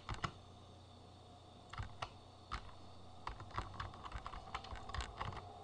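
Typing on a computer keyboard: a few keystrokes near the start and about two seconds in, then a quick run of keystrokes from about three seconds in.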